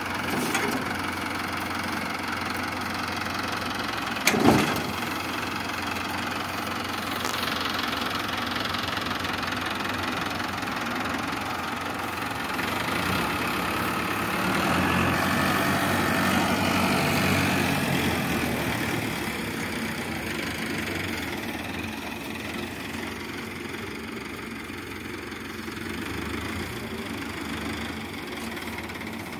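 Mahindra Harvestar Balkar combine harvester's diesel engine running steadily, a little louder for a few seconds around the middle. One sharp knock sounds about four and a half seconds in.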